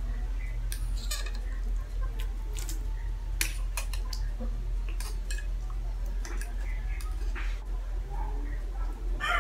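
Metal fork clinking and scraping against a ceramic toilet bowl while scooping up noodles: a scatter of sharp, irregular clicks.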